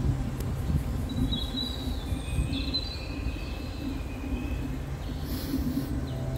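Steady low outdoor rumble with a few faint high whistling tones that glide about one to three seconds in.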